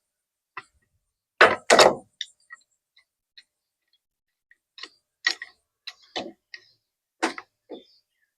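A string of short, irregular clicks and knocks from a pipe wrench and breaker bar being fitted and shifted on the threaded collar of a hydraulic cylinder, the loudest pair about a second and a half in.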